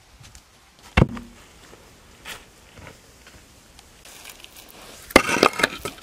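A heavy flat stone slab thuds down onto packed earth about a second in. Near the end comes a short burst of stone-on-stone clacking and scraping as slabs are knocked and set against each other.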